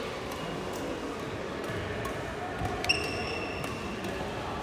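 Sports hall ambience: a steady murmur with scattered sharp taps, and a short high squeak about three seconds in.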